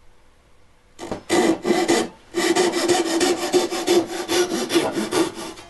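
Japanese ryoba pull saw cutting through a block of pine in quick back-and-forth strokes. It starts about a second in, pauses briefly, then saws on fast and evenly until just before the end.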